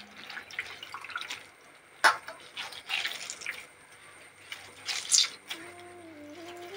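Water dripping and splashing back into a steel bowl as handfuls of soaked mushrooms are squeezed out by hand, with sharper splashes about two and five seconds in.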